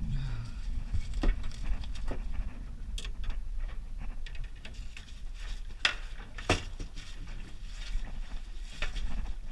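Sharp knocks and clatter as a landing net holding a smoothhound is brought aboard a small boat and handled on the deck, over a steady low rumble.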